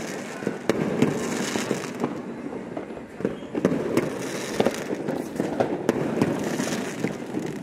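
Fireworks going off: a continuous stream of overlapping bangs, with many sharper cracks standing out.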